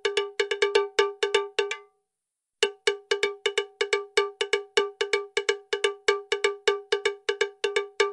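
Rapid, evenly repeated strikes of a bell-like metallic percussion, several a second, each hit with a ringing note and overtones. It stops dead for about half a second around two seconds in, then picks up again at the same pace.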